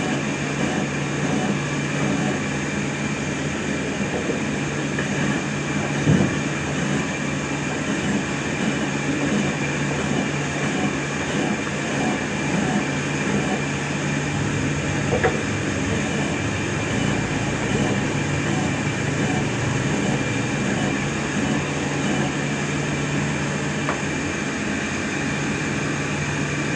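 Sawmill machinery running steadily: a continuous mechanical rumble with a steady hum, and a couple of brief knocks, one about six seconds in and one about fifteen seconds in.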